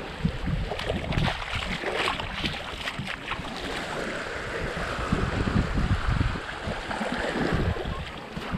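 Small waves lapping and washing up over a sandy shore, with wind buffeting the microphone.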